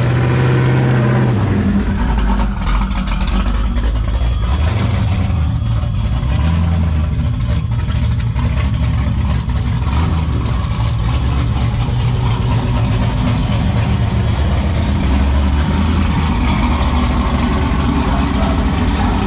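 Twin-turbo LSX V8 of a Cadillac Escalade running loudly at low speed, its pitch rising and falling a little with light throttle changes.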